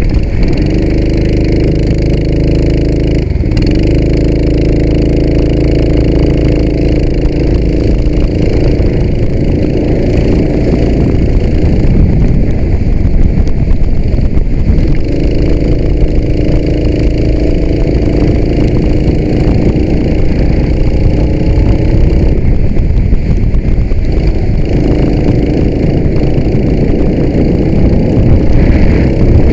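Go-kart engine heard from on board, running at a steady high pitch that drops away a few times as the kart slows and then picks back up, under heavy wind rumble on the microphone.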